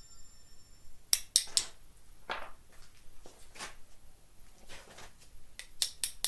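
Intermittent sharp metallic clicks and short scrapes of hand work on metal parts, in a small room: a cluster of clicks about a second in, scrapes through the middle, and more clicks near the end.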